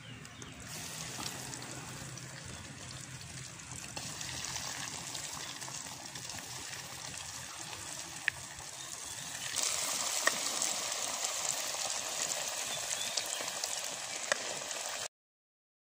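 Red-lentil fritters deep-frying in hot oil in a wok, a steady sizzle that grows louder about two-thirds of the way through, with a few sharp pops. The sound cuts off just before the end.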